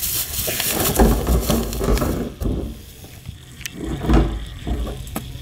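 Plastic bag of flour crinkling as hands press and handle it, then a few sharp clicks and low thumps.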